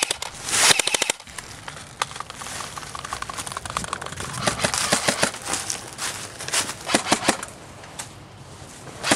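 Airsoft guns firing: a dense full-auto burst about half a second in, then scattered single shots and short bursts of sharp clicks.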